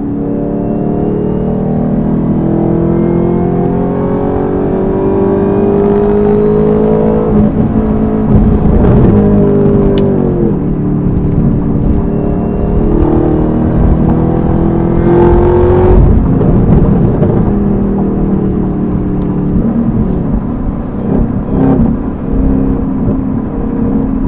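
Chevrolet Camaro ZL1's supercharged 6.2-litre V8, through an aftermarket cat-back exhaust and cold air intake, pulling hard after a downshift. The revs climb for several seconds, drop at a gear change about ten seconds in, climb again, drop around sixteen seconds, then the engine settles into a steadier drone.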